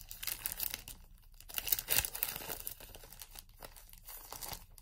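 Clear plastic comic-book bags crinkling and rustling as a bagged comic is picked up and slid over others, in uneven bursts with a short knock about two seconds in.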